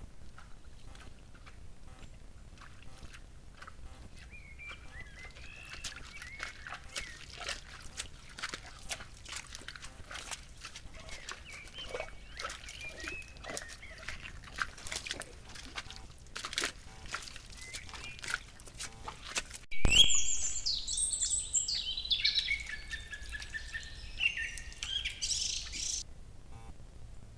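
Moose hooves squelching and clicking in wet mud and puddles, with faint bird chirps. About twenty seconds in, loud varied songbird singing starts abruptly and lasts about six seconds before cutting off.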